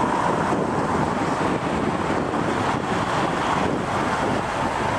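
Steady wind rushing over the microphone, mixed with the hum of highway traffic going by.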